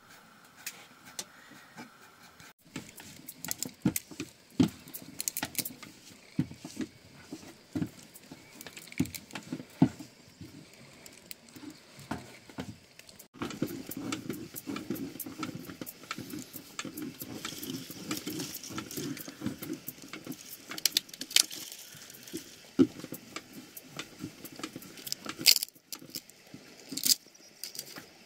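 Irregular clinks, knocks and light rattles of small hard objects being handled. The texture changes abruptly twice and becomes denser in the second half.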